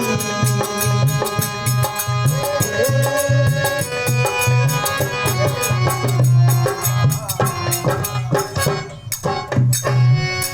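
Instrumental bhajan music: sustained melody over a steady hand-drum beat with fast metallic clicks. It breaks up and thins out near the end.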